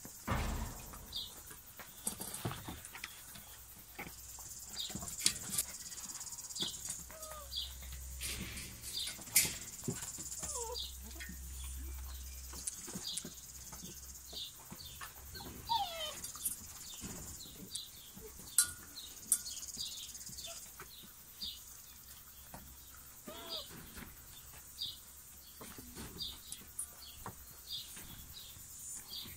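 Borzoi puppies eating from stainless-steel bowls: lapping and chewing with sharp clinks now and then, a few short high squeaks from the puppies, and small birds chirping over and over in the background.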